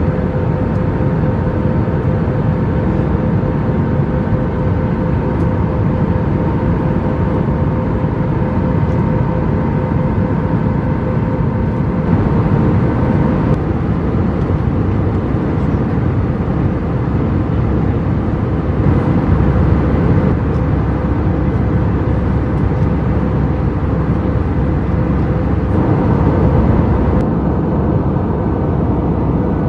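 Airbus A320 cabin noise in cruise: a steady roar of engines and rushing air, with a faint constant hum running through it.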